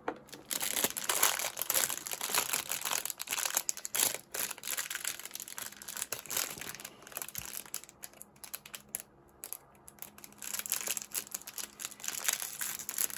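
Crinkling and rustling of packaging being handled, with many small irregular clicks, easing off for a moment about eight seconds in.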